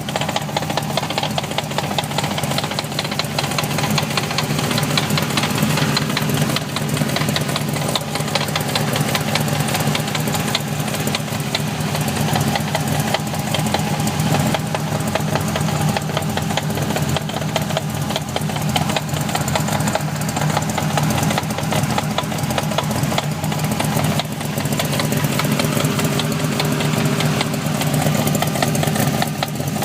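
V8-swapped BMW E30 engine running steadily, with a fast, even knocking noise that the owner puts down to the five-speed gearbox.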